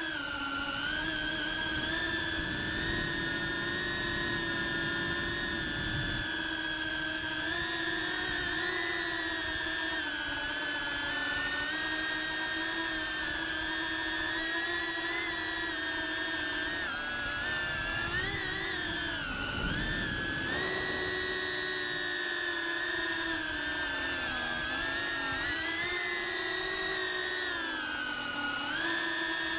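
Cinewhoop FPV drone's brushless motors and ducted propellers whining, the pitch rising and dipping as the throttle changes.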